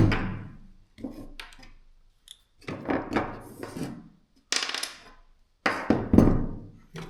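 Knocks and clatters of cordless drill parts being handled and set down, about half a dozen sudden hits spread over several seconds, some with a short scrape or rattle after them.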